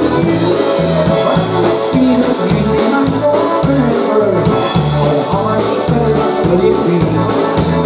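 Live polka band playing a dance number: accordion, concertina and horns over a steady oom-pah bass beat about twice a second.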